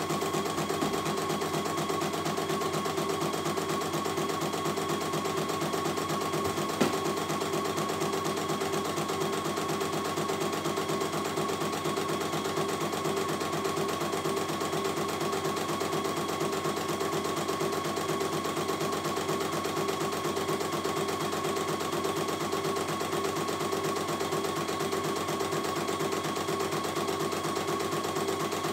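CNY E900 computerized embroidery machine stitching a design, its needle striking in a fast, even rhythm over a steady tone from the machine. One sharp click about seven seconds in.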